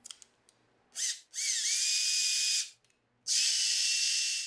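Makita cordless drill spinning a wooden extension shaft with no load, in three trigger pulls: a short blip, then two runs with a whine that rises as the motor speeds up and then holds steady.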